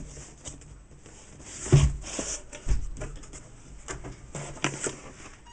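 Handling of a cardboard product box on a wooden desk: a few knocks and scrapes as it is moved and its lid flipped open, the loudest a thump about two seconds in.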